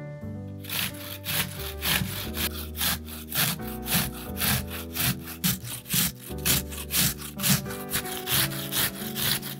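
Raw potato being grated on a hand grater: rhythmic rasping strokes, about two to three a second, starting about half a second in and stopping near the end, over background piano music.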